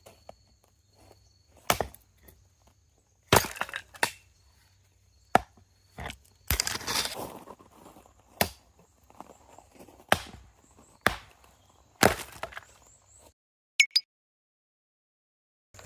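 Firewood being chopped or split: a string of sharp wooden knocks, roughly one a second, with one longer splintering scrape in the middle. Insects trill steadily behind, and the sound stops suddenly near the end.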